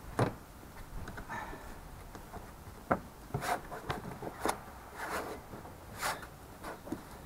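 Hands pressing and sliding on a plastic front trim panel over the strut tower, giving a string of short rubs, scrapes and taps, the sharpest about three seconds in.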